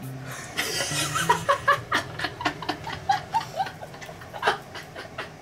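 Two young men laughing hard, in quick repeated bursts. Underneath, oil hisses and spits with sharp pops in a frying pan where a kitchen sponge is frying.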